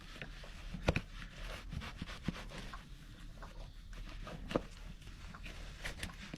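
Work on a Shire horse's hoof: uneven scraping with two sharp knocks, one about a second in and one past the middle.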